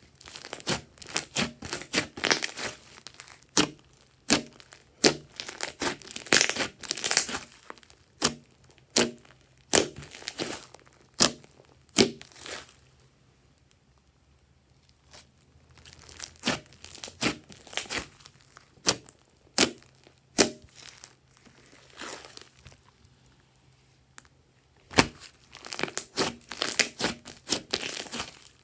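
Thick slime being stretched, folded and pressed by hand, giving off clusters of sticky crackles and pops. The crackling comes in runs, with two short pauses, one about midway and one near the end.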